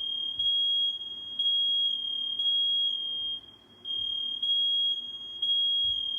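Household smoke alarm sounding, set off by smoke from cooking: a high steady beep in the three-beep pattern, three beeps, a short pause, then three more.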